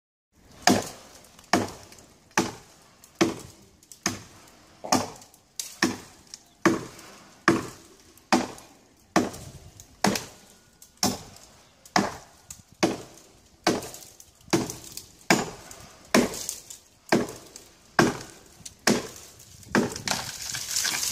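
Axe chopping into wood: a steady run of sharp strikes, a little more than one a second. A rising hiss builds near the end.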